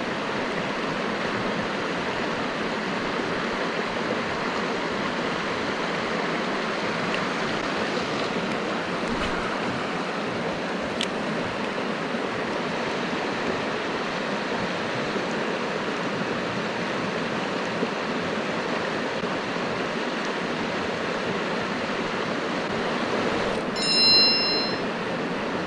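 Mountain stream water rushing over rocks, a steady even wash. About a second before the end comes one brief, high whistled note, the loudest sound here.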